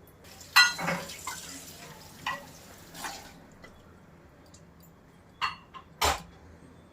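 Metal serving spoon knocking and scraping against the biryani pot, several sharp clinks spread out, the first with a short ring.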